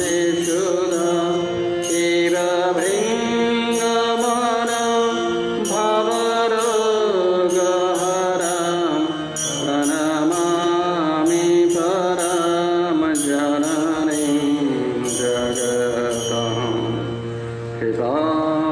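Men's voices singing a devotional hymn together to a melody over held steady tones, with a regular beat of short, high metallic strikes.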